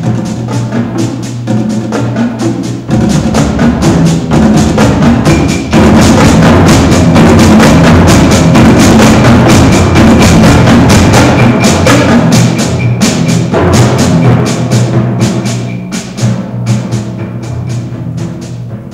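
Percussion ensemble playing: rapid drum strokes over sustained, rolled timpani notes. It builds to a loud, dense passage about three seconds in and eases off after about fourteen seconds.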